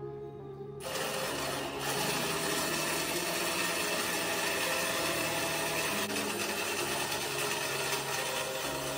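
3D-printed worm gearbox driven by a 775 DC motor, running while it winds a cord against a dumbbell load: a steady grinding whir of motor and plastic gears that starts about a second in.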